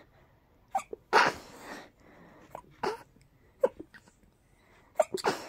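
A person sneezing rapidly several times: a loud sneeze about a second in, then short sharp sneezes at intervals, and another quick cluster near the end.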